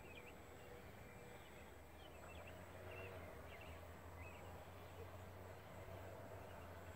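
Faint outdoor ambience: small birds chirping now and then, with short high chirps every second or so over a low steady hum.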